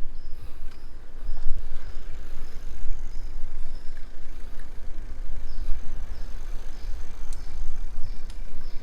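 Wind buffeting the microphone while riding a bicycle on a trail, a loud, uneven low rumble, with scattered clicks and rattles from the bike. Faint high chirps repeat about every 0.7 s in the second half.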